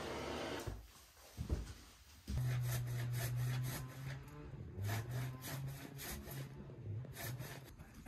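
A kitchen gas blowtorch hisses steadily and cuts off under a second in. Then comes a single knock, and from about two seconds in a low hum with a run of short scraping and rubbing sounds.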